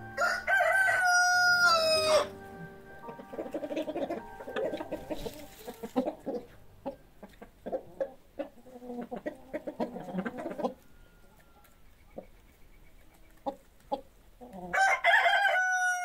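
A rooster crowing: one long crow about two seconds long that holds its pitch and drops at the end, then chickens clucking for several seconds, and a second crow starting near the end.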